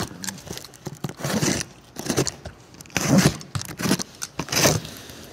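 Cardboard boxes and plastic packaging being opened and handled, a run of irregular rustling, scraping and tearing noises.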